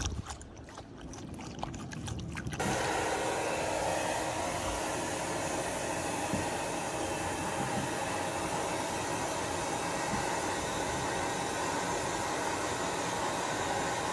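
Hand-held hair dryer switching on about two and a half seconds in and blowing steadily, drying a dog's wet coat. Before it, a short quieter stretch of a dog lapping water from a plastic bottle.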